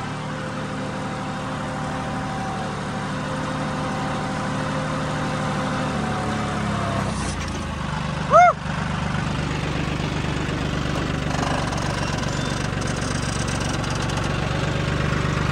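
Tractor diesel engine running steadily under load while pulling a seed planter through tilled soil. About eight seconds in comes one short, loud call that rises and falls in pitch.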